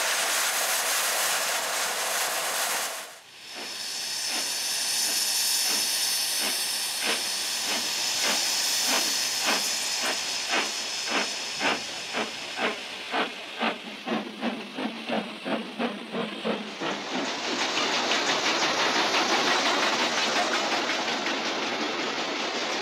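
Steam locomotive: a loud hiss of escaping steam that cuts off after about three seconds. Then, as it pulls a train away, the exhaust beats come steadily at about two a second, quickening slightly. Near the end there is a long loud hiss of steam.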